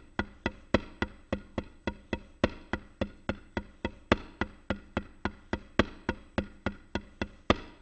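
Drumsticks tapping a rubber practice pad in a slow, even single paradiddle-diddle (RLRRLL), about three and a half strokes a second, with every sixth stroke louder. The strokes stop just before the end.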